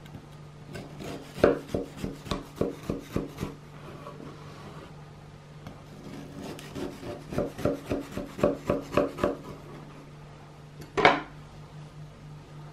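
Sabatier kitchen knife sawing through crumbly shortbread on a wooden cutting board: two runs of quick strokes, about four a second, with the blade knocking on the board, then one louder knock near the end.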